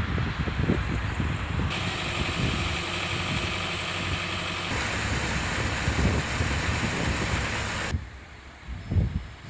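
Vehicle engines and street noise with wind on the microphone, changing abruptly a couple of times.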